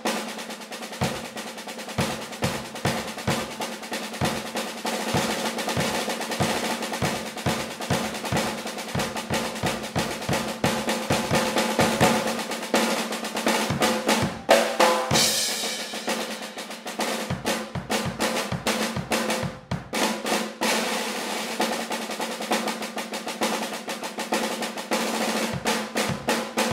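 Solo snare drum played with sticks in rapid, dense strokes, with bass drum thuds underneath and a cymbal ringing out about fifteen seconds in.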